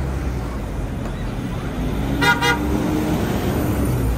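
A vehicle horn gives two quick, high-pitched toots about two seconds in, over the steady rumble of passing street traffic.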